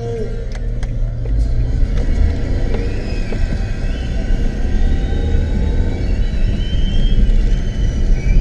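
Car heard from inside the cabin while driving: a steady low engine and road rumble that builds as the car pulls away from a turn and gathers speed.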